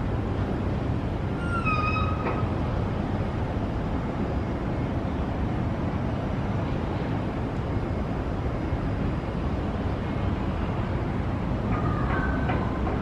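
Steady low outdoor rumble. A short high-pitched call or squeal comes about a second and a half in, and another brief one near the end.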